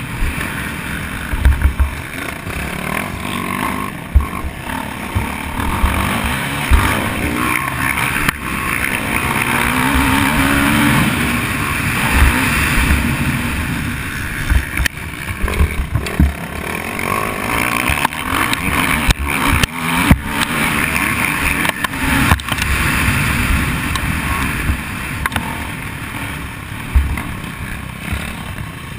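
Motocross dirt bike's engine running under throttle, heard on board over rushing wind, with frequent knocks and thumps as the bike hits the bumps of the dirt track.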